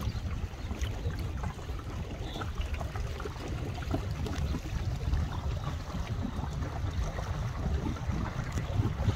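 Wind buffeting the microphone as a steady, uneven low rumble, over light lapping of small waves on the water.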